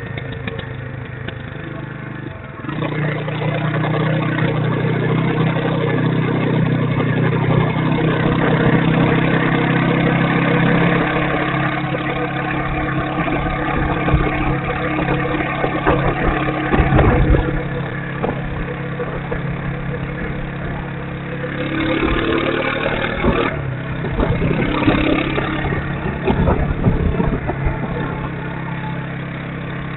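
Motorcycle engine running while riding, a steady engine note that gets louder about two and a half seconds in as the bike picks up speed, with wind rushing on the microphone that swells at times.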